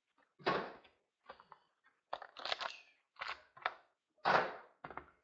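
Trading-card boxes and their packaging being opened by hand: a series of about six short rustling, crinkling bursts, the loudest a little past four seconds in.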